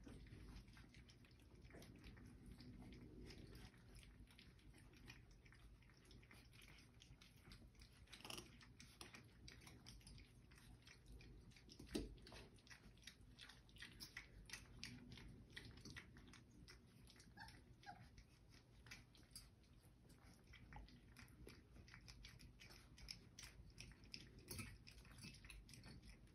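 Litter of four-week-old Old English Sheepdog puppies eating a snack out of a muffin tin: faint, busy chewing with many small clicks and ticks, and a sharper knock about twelve seconds in.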